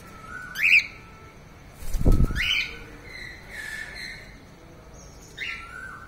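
Cockatiel whistling its song in about four short phrases, several swooping upward in pitch. A low thump comes about two seconds in.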